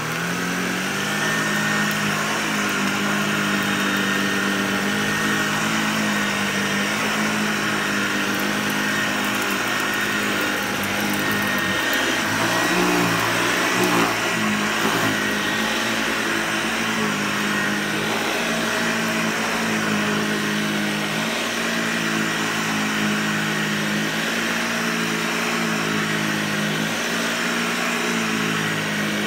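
Hoover Lightweight 1340 vacuum cleaner running steadily: an even motor hum with a high whine over it, wavering a little about halfway through.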